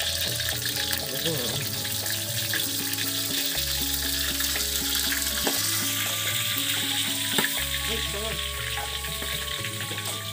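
Sliced chilies frying in hot oil in a wok on a gas burner, a steady sizzle stirred with a spatula, with a couple of sharp pops. Background music with a steady bass line plays under it.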